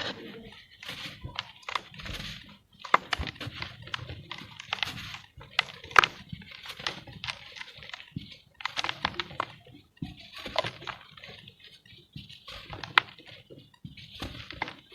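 Lumps of set pure cement being crumbled, crisp crackling and gritty crunching with sharp snaps, in repeated bursts with short pauses between.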